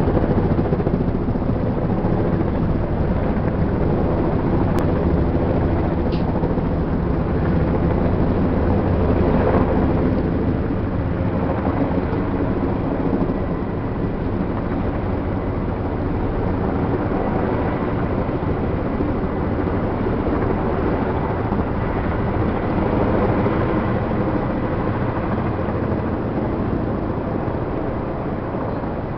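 Helicopter flying overhead, its rotor and engine making a steady, loud hum.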